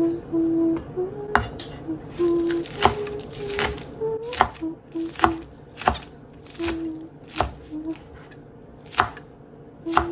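A chef's knife chopping green onions on a bamboo cutting board: about a dozen sharp chops at a slow, uneven pace. A woman hums a tune in short held notes over the chopping.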